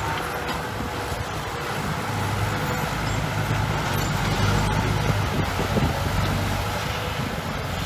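Diesel engine of heavy earthmoving equipment running steadily under a low, even hum.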